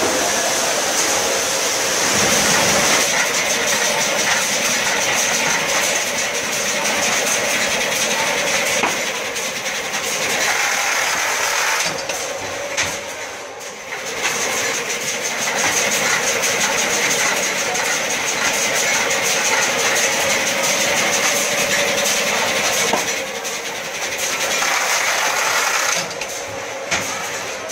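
Automatic case packing machine running: continuous dense mechanical clatter and hiss with a steady high whine. It eases off briefly a few times, around the middle and near the end.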